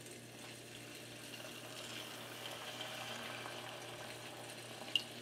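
Hot sauce pouring from a bottle into a small saucepan of melting butter, a faint steady liquid hiss and sizzle. A sharp click near the end.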